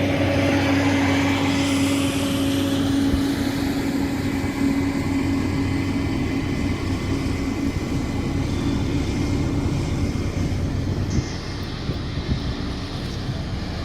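Komatsu D41P bulldozer running steadily, with a deep engine hum and a steady whine over it that fades out partway through. The sound drops a little in loudness near the end.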